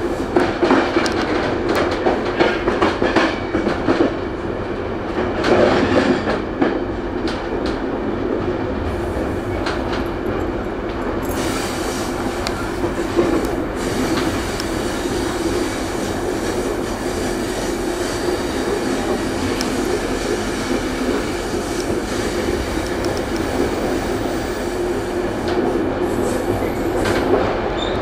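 Electric commuter train running over jointed track and switches, heard from its rear cab: wheels clicking over rail joints and switch points in the first few seconds, then an even running rumble with a steady low hum.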